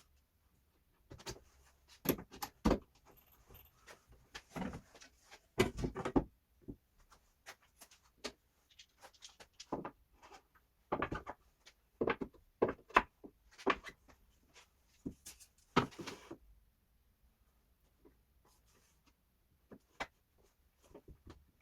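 Irregular clicks, knocks and short rattles of hard objects being handled and set down on a workbench, with quiet gaps between them.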